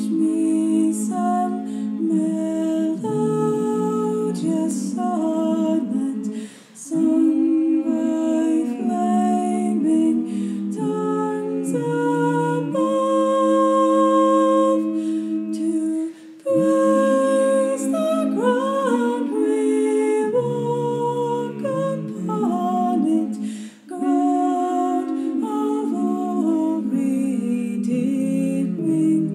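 Mixed-voice choir singing a cappella in long held chords in several parts. The phrases are broken by brief pauses for breath, three times.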